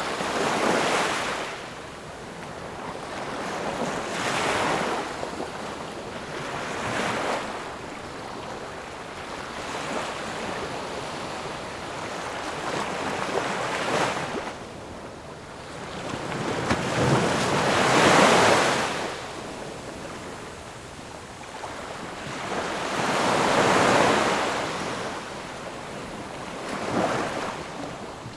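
Ocean waves breaking and washing up the shore, the surf swelling and falling away every few seconds, with the biggest surge a little past the middle.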